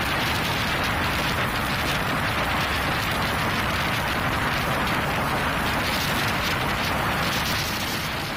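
Steady rush of wind and spray aboard a speedboat under way, with wind buffeting the microphone.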